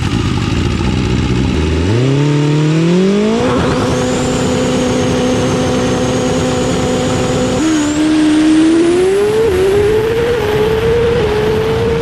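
Electric door opener motor running as a shop door is raised: a hum that climbs in pitch as the motor spins up, then holds steady with a thin high whine, dips about two-thirds of the way in and slowly rises again.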